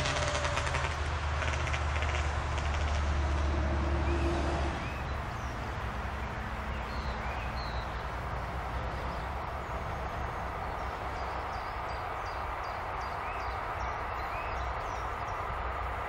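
Electric locomotive hauling a freight train as it approaches on the line: a low steady hum with a faint tone above it. About five seconds in this breaks off abruptly to a quieter, more distant rumble, with birds chirping over it and a thin rising tone near the end.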